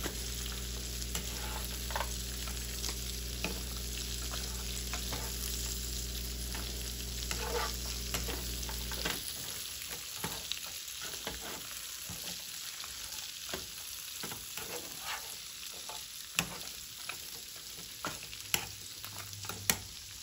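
Green beans and diced sausage sizzling in oil in a nonstick skillet as they are stirred with a plastic spatula. Scattered scrapes and taps of the spatula against the pan come through, with a few sharper clacks near the end.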